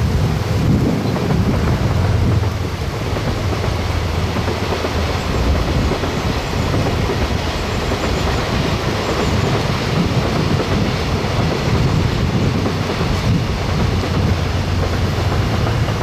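Diesel train running along the line, a steady rolling rumble over a low engine drone.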